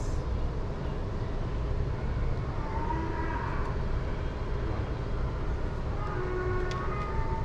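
Steady low rumble of outdoor urban background noise, with a faint tone that slides in pitch about three seconds in and another faint tone around six seconds in.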